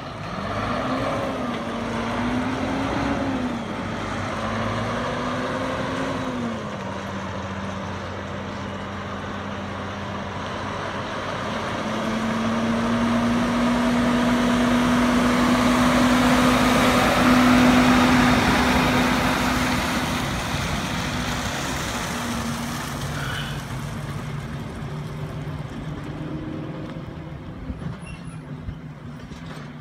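Truck engine running as the truck is driven, its pitch rising and falling several times in the first few seconds, then holding steady and getting louder toward the middle before easing off.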